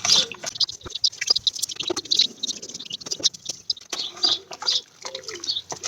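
4000-grit wet-and-dry paper rubbed by hand over a plastic headlight lens: quick, irregular scratchy strokes of wet sanding.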